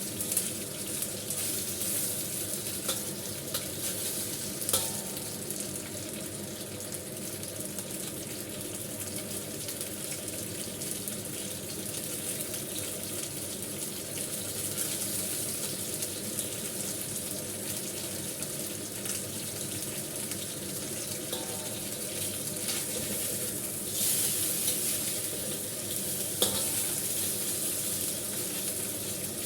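Pork belly spare ribs sizzling steadily in hot oil in a wok, left unturned to sear, with a few sharp clicks. The sizzle grows louder near the end.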